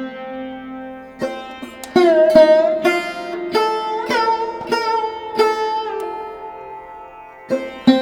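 Background music: a plucked string instrument playing a slow melody with bending notes, sparse at first, then notes coming about every half second from about two seconds in.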